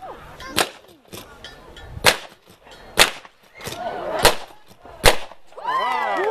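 Five rifle shots at uneven intervals of about one to one and a half seconds, each a sharp crack with a short ring after it.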